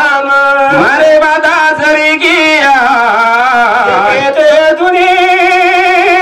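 A man singing a Banjara devotional bhajan in long, held, wavering notes.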